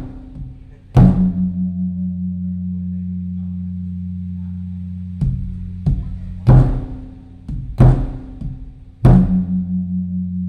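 Large Thai temple drum (klong laeng) beaten in the evening, with uneven strokes of varying force. The heavier strokes leave a deep boom ringing on for several seconds. It is the signal announcing the eve of the Buddhist holy day (wan kon, wan phra).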